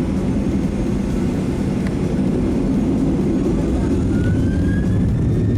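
Boeing 737-800 cabin filled with the steady low rumble of its CFM56 jet engines, with a thin whine rising in pitch over the last couple of seconds as the engines spool up for the take-off roll.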